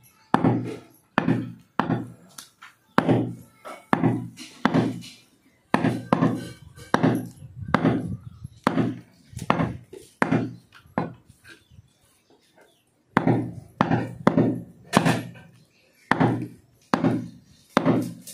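A butcher's cleaver chopping goat meat, about two heavy thudding strokes a second, with a pause of a second or so past the middle before the chopping resumes.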